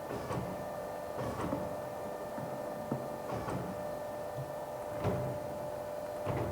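Powered four-roller plate rolling machine driving a steel sheet through its rolls to bend it into a cylinder: a steady motor hum with a short knock every second or two.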